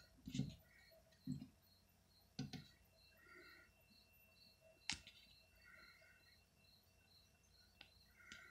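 Near silence: faint high chirping repeating two or three times a second, a few soft thumps in the first three seconds, and one sharp click about five seconds in.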